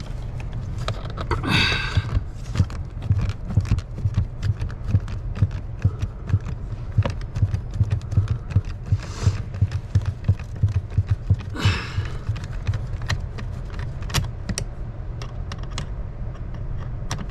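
Screwdriver backing a screw out of a metal angle bracket on a plastic accessory socket: irregular small metallic clicks and a few brief scrapes, over a steady low hum.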